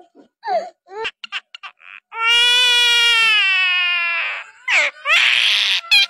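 Common myna calling: a run of quick clicks and short chirps, then a single pitched note about two seconds long that sags slightly in pitch, then a harsh, hissing screech near the end.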